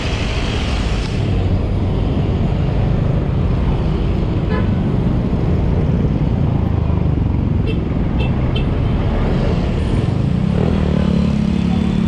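Heavy stop-and-go road traffic of motorcycles, cars and jeepneys: a steady low engine rumble, with a few short high horn toots.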